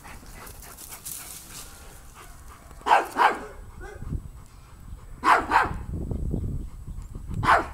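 Dog barking: two quick barks about three seconds in, two more just past five seconds, and a single bark near the end, with a low steady noise behind the later barks.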